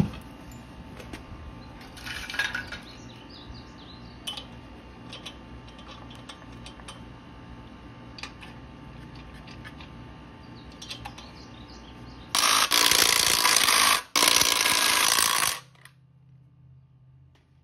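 Light metallic clicks and clinks as the wheel goes back on the hub and the lug nuts are started, then a cordless impact wrench running the lug nuts down in two loud bursts about twelve seconds in.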